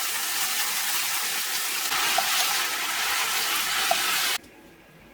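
Water running steadily from a tap, stopping suddenly about four seconds in.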